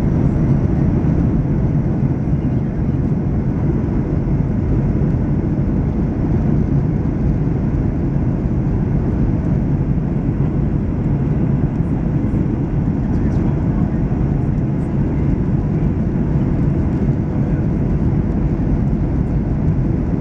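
Steady low rumble inside the cabin of a Boeing 737-900: engine and airflow noise, even and unchanging, with a faint steady hum.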